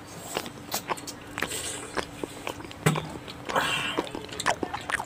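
People chewing and biting into fresh pineapple, with irregular wet mouth clicks and smacks and a brief hissy sound about three and a half seconds in.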